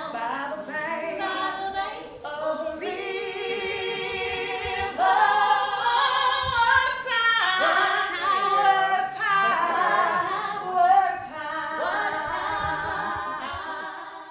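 Several voices singing a cappella in harmony, slow held notes that fade out near the end.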